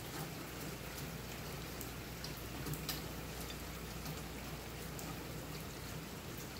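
Steady low hiss with a few faint clicks and taps as a metal proportioning valve is handled and fitted into its mounting bracket, the strongest about three seconds in.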